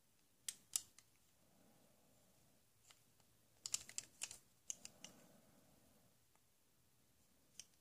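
Light plastic clicks and taps from a plastic toy caliper and toy bolt being handled and fitted together: two clicks about half a second in, a quick run of clicks around the middle, and one more near the end.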